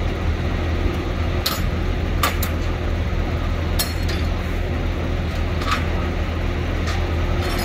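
A heavy truck's diesel engine idling steadily, with sharp metallic clinks now and then, about six of them.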